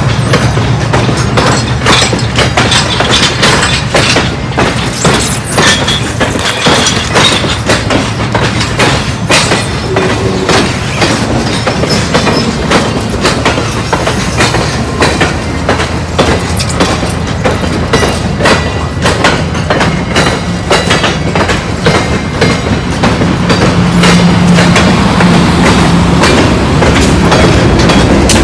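Passenger coaches of a train rolling slowly past close by, their wheels clicking over rail joints in quick, uneven succession. Near the end a steady diesel engine tone grows louder as the locomotive draws near.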